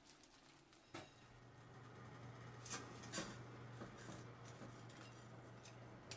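Dry spaghetti being lowered into a stainless steel pot of hot water, with a few light clicks and taps against the pot, over a low steady kitchen hum that starts about a second in.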